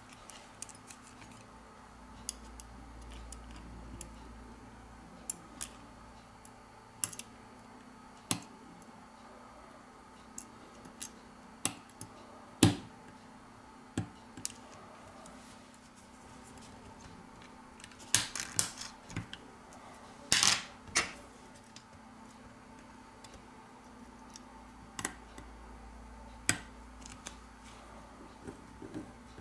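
Scattered sharp clicks and light taps of steel tweezers and small parts against a smartphone's circuit board and metal shield cans as components are pressed into place, with a quick run of clicks about two-thirds of the way through.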